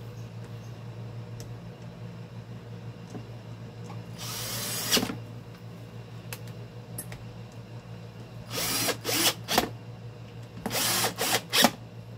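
Power screwdriver driving screws in short runs: one run of about a second near the middle, then a series of quick pulses in the last few seconds, over a steady low hum.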